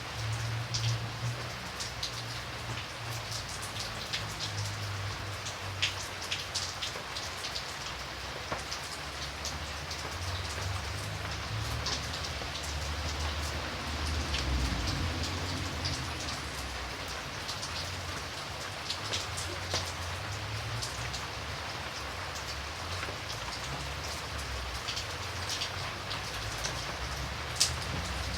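Steady rain falling on surfaces, with individual drops ticking sharply over an even hiss and a low rumble underneath.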